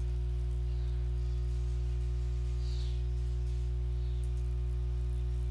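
Steady low electrical mains hum with a stack of overtones, picked up by the recording chain.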